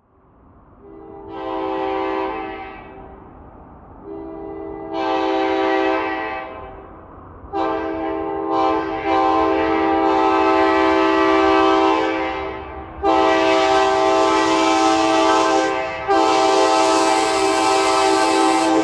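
Nathan K5LA five-chime air horn on an AEM-7 electric locomotive, sounding a chord in a series of blasts. Two long blasts are followed by two short ones and then long held blasts, growing louder as the train approaches.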